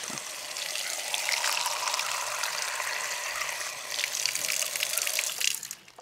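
Water running from an outdoor tap into a plastic cup, a steady splashing stream that cuts off just before the end.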